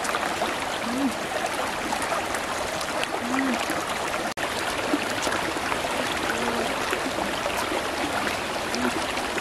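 Shallow stream running steadily over rocks, a continuous rushing trickle of water.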